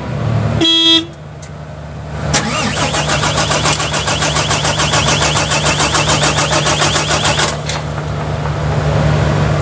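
A short beep about a second in. Then the Volvo FM 370 truck's starter cranks the diesel engine with a fast rhythmic pulse for about five seconds and stops without the engine catching: a crank-but-no-start, because the new engine ECU's chassis ID does not match while the data link is connected.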